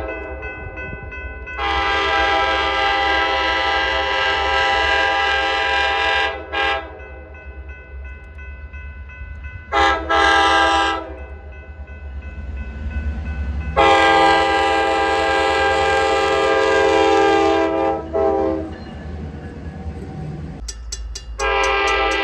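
Locomotive multi-chime air horn blowing a horn show: a long blast of several seconds, a short toot, two quick toots, another long blast and a short toot, with a new blast starting near the end. A steady low rumble runs underneath.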